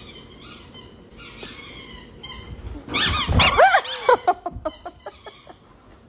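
A dog giving a run of short, high-pitched whining yelps, each rising and falling in pitch. The yelps start about three seconds in and trail off within two seconds.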